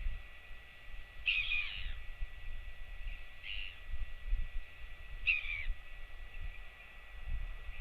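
Short bird calls, three of them about two seconds apart, over a low rumble of wind on the microphone.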